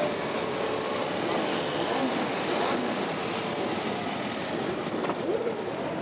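A procession of mopeds and scooters riding past, many small engines running together with their revs rising and falling; one revs up sharply a little after five seconds.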